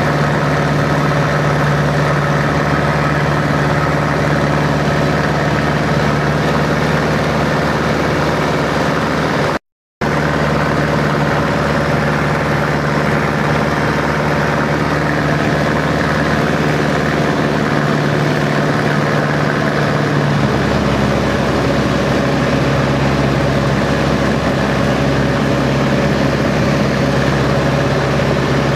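de Havilland Chipmunk's four-cylinder Gipsy Major engine running steadily in flight, heard from inside the cockpit. The sound drops out completely for a split second just under ten seconds in, and the low engine note shifts slightly about twenty seconds in.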